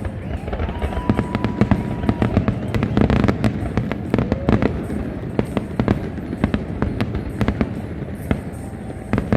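Fireworks going off in quick succession: many sharp bangs and crackles, with one loud bang near the end.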